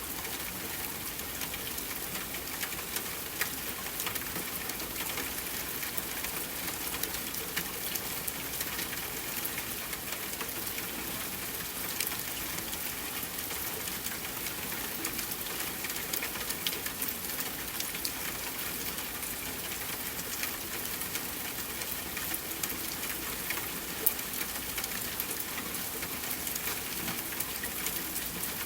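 Steady rain falling, with individual drops ticking on a surface and a few louder drips, about 3.5, 12 and 24 seconds in.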